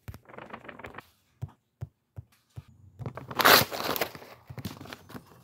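Fabric rustling and crumpling of bedding and clothes as a person shifts about in bed, with a few short knocks of the phone being handled. The loudest burst of rustling comes about three and a half seconds in.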